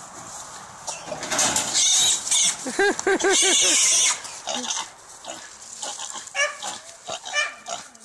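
A hog squealing loudly for about two seconds while a bay dog barks in quick bursts, with shorter barks and grunts continuing after.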